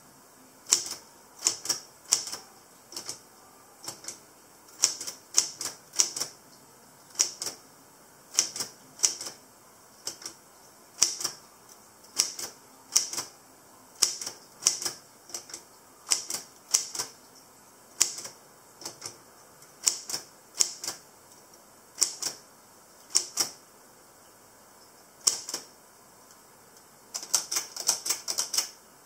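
Brother typewriter keys being typed, sharp irregular clacks about one to three a second, with a quick flurry of keystrokes near the end.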